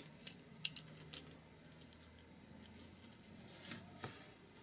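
Faint small clicks and rattles of a handmade DIMM-edge connector with a ribbon cable and a metal DB25 plug being turned over in the hands. Several clicks come in the first two seconds and a few more near the end.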